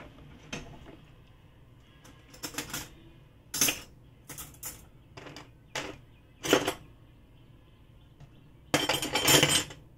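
Clatter of kitchenware being handled: a string of separate knocks and clinks, then a longer rattling stretch near the end, the loudest part.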